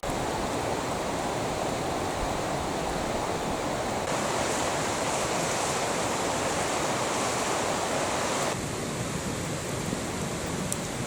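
Steady rushing wind noise at night, louder from about four seconds in and easing off near the end.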